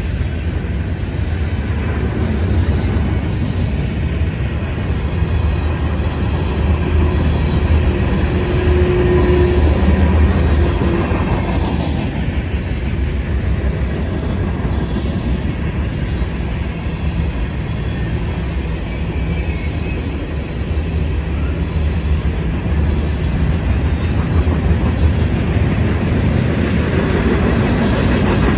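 Freight cars of a long mixed freight train (boxcars, covered hoppers and tank cars) rolling past close by: a steady rumble and rattle of steel wheels on the rails, with a faint wheel squeal about a third of the way in.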